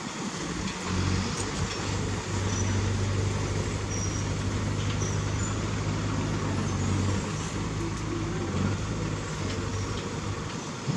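Heavy diesel earthmoving machinery running steadily, a deep engine hum under a dense mechanical noise, easing slightly about seven seconds in.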